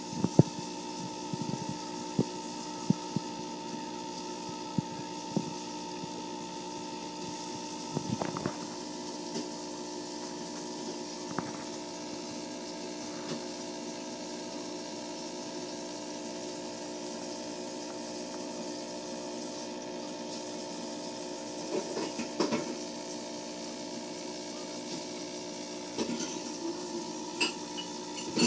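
Steady hum of running aquarium equipment, with scattered light clicks and knocks, a cluster of them about eight seconds in and more near the end.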